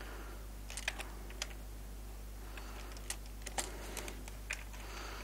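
Computer keyboard keystrokes, a scattered run of a dozen or so short clicks at an irregular pace, over a steady low hum.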